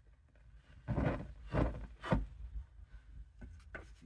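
Three short puffs of breath blowing out a small fire of burning wood shavings, the air rushing across the microphone, followed by a couple of faint taps.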